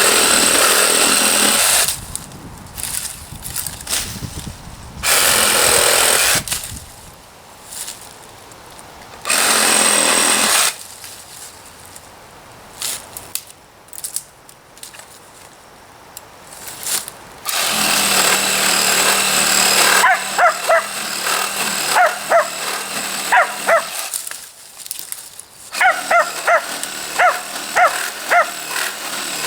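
Ryobi 18-volt cordless reciprocating saw with a pruning blade cutting tree limbs in four short bursts, stopping between cuts. In the last third, a run of short barks, about two a second, pausing briefly before going on.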